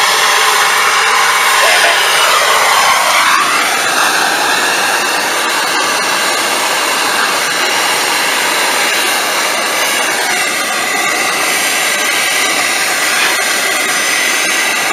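Handheld cylinder brazing torch burning with a steady hissing rush of flame while brazing a copper refrigerant line to an AC condenser's service valve. Its tone dips and rises once about two to four seconds in.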